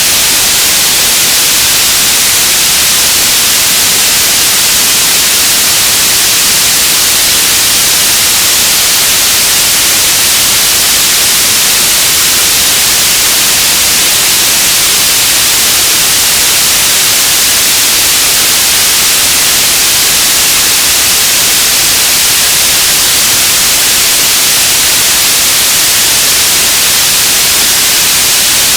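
Radio static: a loud, steady hiss, strongest in the high range, running without breaks or changes.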